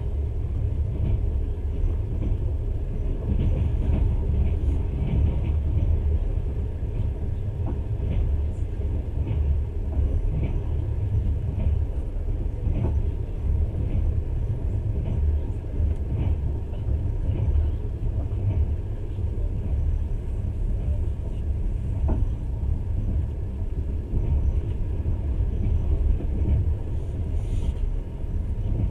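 Steady low rumble of a passenger train running along the track, heard from inside the carriage, with faint irregular clicks and rattles on top.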